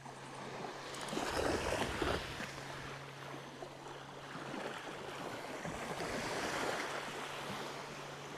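Small waves washing and lapping at the shoreline in a steady surf noise that swells and eases.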